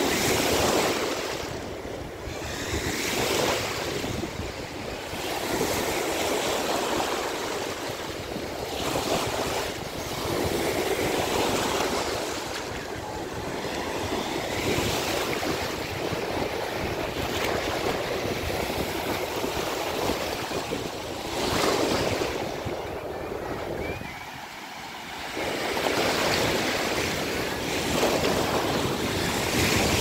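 Shallow surf on a sandy beach: small waves breaking and washing in, the hiss swelling and fading every few seconds.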